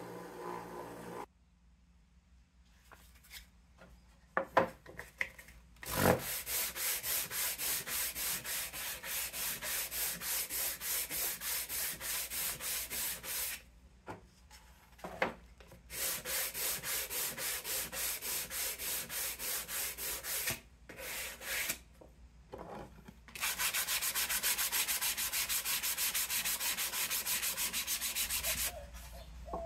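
Hand sanding the edge of a wooden board with a sheet of sandpaper: quick back-and-forth scraping strokes, about three a second, in three bouts with short pauses between them. A couple of knocks come before the first bout.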